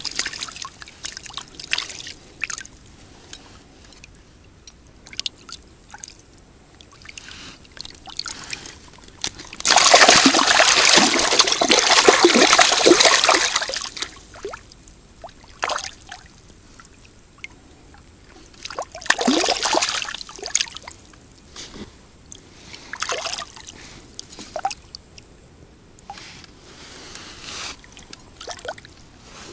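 Water splashing and trickling as a keepnet holding crucian carp is lowered and lifted in shallow water. There is a loud spell of splashing and running water a little under halfway through, a shorter one about two-thirds through, and small splashes and drips between.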